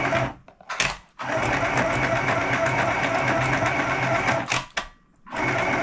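Small electric sewing machine stitching, running in spurts with a steady hum: it stops just after the start, gives a short burst about a second in, runs for about three seconds, pauses, then starts again near the end.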